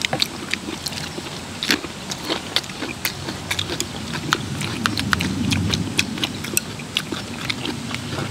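People eating at a table: crunchy bites and chewing, including raw green chili peppers, with irregular clicks of chopsticks and spoons against metal bowls. A low rumble swells and fades about halfway through.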